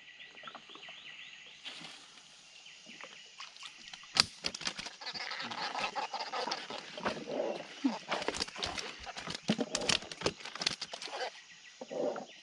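Insects chirping in a fast, even rhythm. Then, from about four seconds in, a sharp knock and a long run of splashing, clattering and knocking as a hooked fish is hauled out of the water and thrashes on the wet wooden floor of a small boat.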